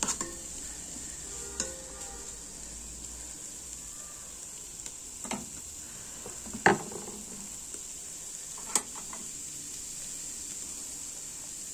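Vegetables (shredded cabbage with coriander and spring onion leaves) sizzling steadily in an electric cooker's nonstick pot while a metal spoon stirs them, scraping and knocking against the pot about five times, loudest a little past the middle.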